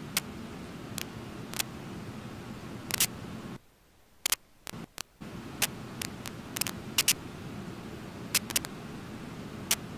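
Steady rush of a shallow river running over riffles, with sharp, irregular clicks scattered through it. The sound cuts out for about a second and a half a few seconds in.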